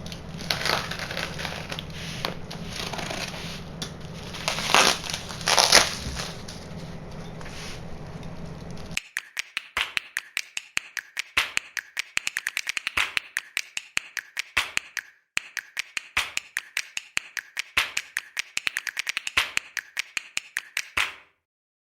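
Plastic parcel packaging and bubble wrap being pulled off by hand. It starts as rustling with a few louder rips, then about halfway through turns into a long, dense run of sharp plastic crinkles and crackles that stops abruptly near the end.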